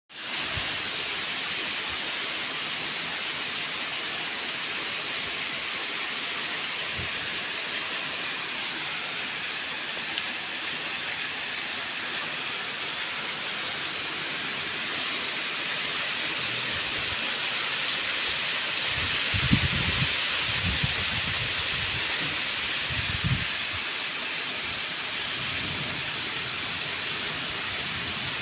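Steady rain falling on trees and foliage, a dense even hiss that swells a little just past the middle. About two-thirds of the way in come a few short low rumbles.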